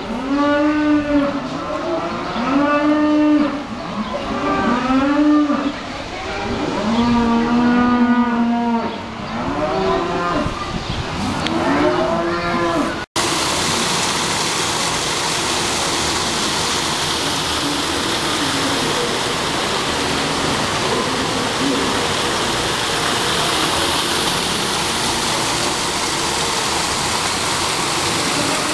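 Calves bawling over and over, about a dozen short rising-and-falling moos in quick succession. About thirteen seconds in the sound cuts to the steady rush of water pouring down an artificial rock waterfall.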